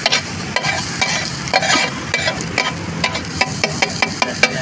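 Metal spatula striking and scraping a large iron tawa while food fries on it, with a steady sizzle underneath. The sharp strikes come a few times a second and grow quicker after about three seconds.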